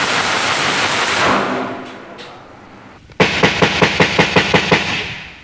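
Automatic rifle fire in a gun battle. A rapid run of shots fades out over the first two seconds, then about three seconds in comes a burst of about a dozen shots at roughly seven a second, lasting about a second and a half.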